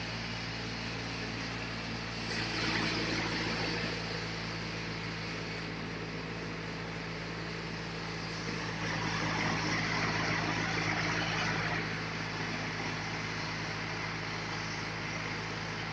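Sawmill running with a steady low engine hum, while the saw cutting through a large log brings a louder hissing noise that swells twice: once about two seconds in and again for a few seconds in the second half.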